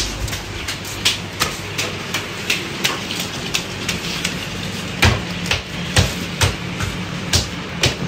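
Irregular sharp clicks and knocks, a few each second, with the loudest about five and six seconds in, over a steady low hum.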